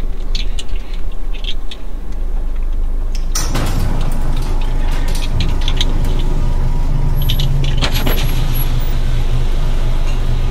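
Car engine running steadily, with scattered clicks and knocks of things being handled and a short rush of hiss about three and a half seconds in.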